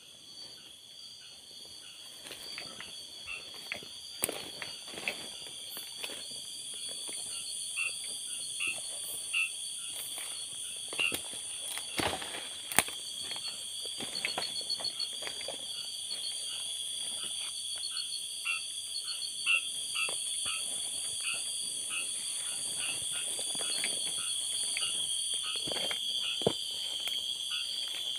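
Night chorus of insects trilling steadily at a high pitch, with frogs calling in short repeated notes. The chorus grows gradually louder. Footsteps through undergrowth add scattered sharp snaps.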